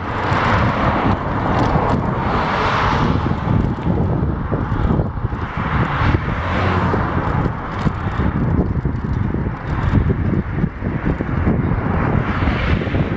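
Wind buffeting the microphone of a camera on a moving bicycle: a constant low rumble, with swells of rushing noise every few seconds as cars pass on the road.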